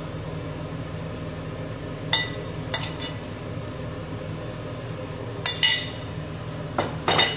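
Cutlery clinking and scraping on a ceramic plate a few separate times, with a quick cluster of dish knocks near the end, over a steady low hum.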